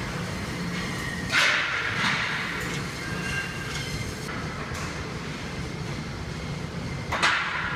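Gym floor ambience: a steady mechanical rumble and hiss from running treadmills and other cardio machines, broken by two sudden loud noises, about a second and a half in and near the end.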